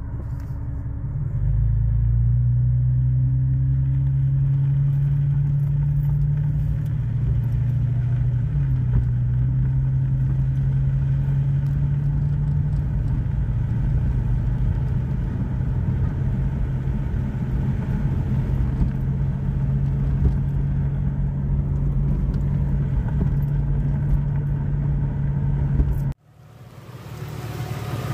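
Inside-the-cab sound of a 2001 Jeep Cherokee's 4.0 straight-six and freshly installed AW4 automatic on a test drive. The engine note rises as it pulls away, then drops a step about eight seconds in as the transmission upshifts, and stays steady under way. Near the end it cuts off abruptly.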